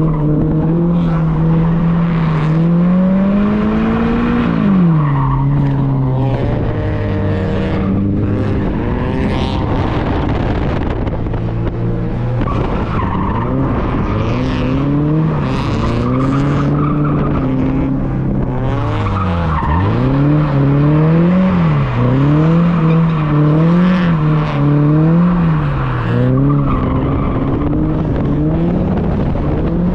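Toyota GR86's 2.4-litre flat-four engine revving up and down hard while the car drifts, with the tyres skidding and squealing on the pavement, heard from inside the cabin. In the second half the revs bounce up and down quickly, about once a second.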